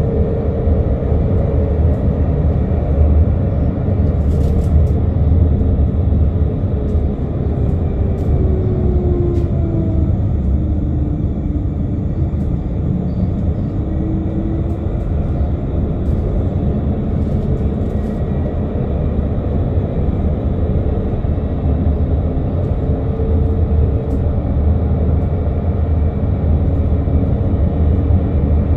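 Solaris Urbino 15LE electric bus running, its TSA TMF 35-44-4 traction motor giving a faint tram-like whine over a steady rumble. The whine drops in pitch about a third of the way through as the bus slows, then rises again as it pulls away.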